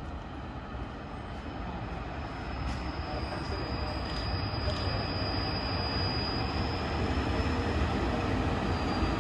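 Train led by a DB class 139 electric locomotive approaching along the track, its low rumble growing steadily louder. A thin high whine runs over it for a few seconds midway and returns near the end.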